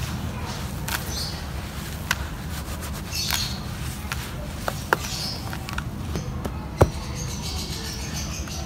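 Hands crumbling and rubbing gritty, lumpy cement-and-sand powder in a plastic tub: a grainy rustling with scattered crackles and a few sharp clicks, the loudest about seven seconds in, over a steady low rumble.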